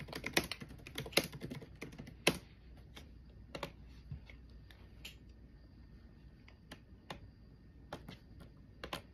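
Typing on a computer keyboard: a quick run of keystrokes in the first two seconds or so, then scattered single key clicks.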